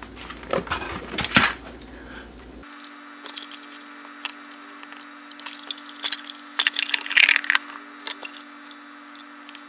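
Scattered clicks and knocks of small hard parts being handled on a workbench, with a faint steady hum from about three seconds in.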